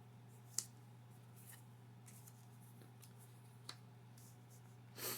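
Faint ticks and a brief rustle of Pokémon trading cards being flipped through by hand, over a steady low hum.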